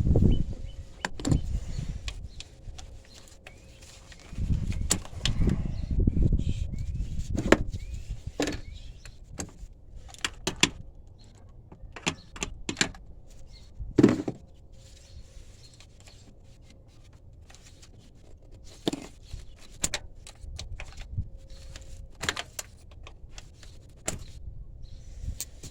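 Metal hand tools and engine parts clicking and clinking at irregular moments, with a few duller knocks, during work on the spark plugs and ignition coils.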